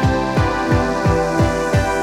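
Background music with sustained notes over a steady beat of deep, falling low hits, about three a second.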